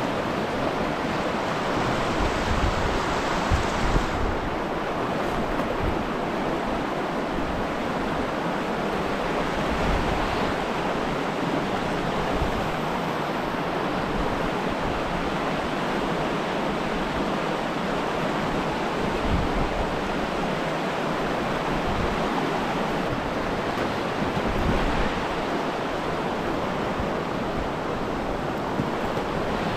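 Steady rushing of river rapids, with low rumbles of wind on the microphone now and then.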